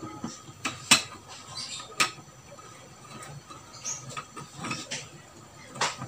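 Wires rustling and a screwdriver clicking and scraping at the terminal block of a small variable frequency drive as the line 1 and line 2 power wires are fastened. Two sharp clicks stand out, about a second and two seconds in, among lighter ticks and rubbing.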